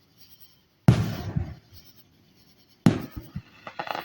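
Two aerial firework shells bursting about two seconds apart, each a sudden bang that fades over about half a second, with a few smaller crackles near the end.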